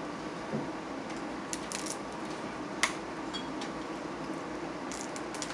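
A few small, sharp clicks and taps from hands working at food and tableware on a seafood-covered table, one louder click about three seconds in, over a steady low room hum.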